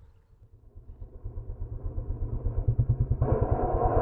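KTM 620 single-cylinder four-stroke motorcycle engine approaching at speed, its rapid even exhaust pulses growing steadily louder. From about three seconds in, a harsher, rougher sound joins the beat.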